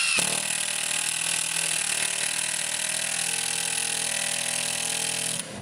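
Cordless drill driving a self-drilling countersunk metal screw through 10 mm plywood into a steel strut. The motor runs steadily under load and stops shortly before the end.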